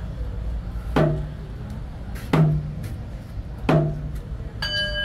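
Hand-held frame drum struck with a wooden beater in a slow, even beat, one stroke about every second and a half. Near the end a small bowl bell is struck once and rings on with a clear, steady tone.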